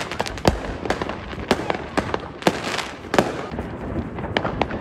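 Fireworks going off in quick succession: an irregular run of sharp bangs and crackling pops, with a few louder bursts among them.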